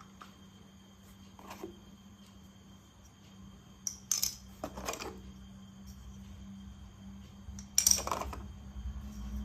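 Plastic toy train pieces clicking and clattering as they are handled, with sharper clatters about four, five and eight seconds in.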